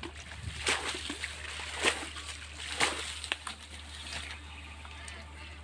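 Hands splashing and sloshing in shallow muddy water, scooping and flinging it out, with three louder splashes about a second apart in the first three seconds and smaller ones after.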